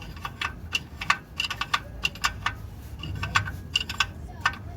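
Quick, irregular metallic clicks and clinks of hand tools, a few a second, as a car's oil filter is worked loose or fitted with a wrench.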